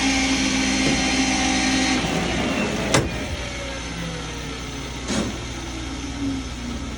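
Powered rebar bender running: a steady motor hum with a sharp knock about three seconds in, then a motor tone falling slowly in pitch, with another knock about two seconds later.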